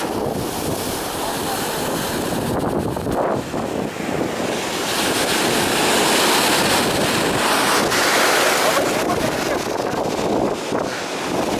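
Red Sea surf: waves breaking and washing up the shore, with wind buffeting the microphone. The wash swells louder about five seconds in and eases again a few seconds later.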